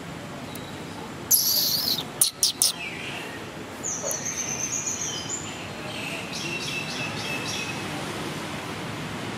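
Birds calling: a loud, high, falling call about a second in, then three sharp chirps, followed by runs of rapid repeated high chirps, over a steady background hiss.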